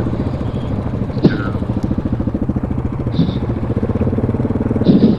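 ATV engine running steadily at low revs, with a short knock about a second in.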